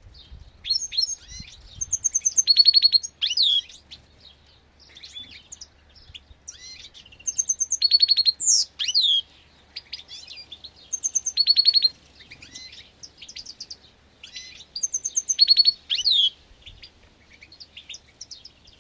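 A small finch singing a short phrase four times, about every four seconds: a fast run of repeated high notes ending in a falling whistle, with softer twittering chirps in between.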